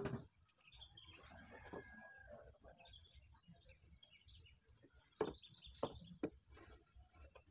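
Wooden knocks as lengths of timber are set down and positioned on a workbench: a sharp one at the start and three more about five to six seconds in. Chickens cluck faintly in the background.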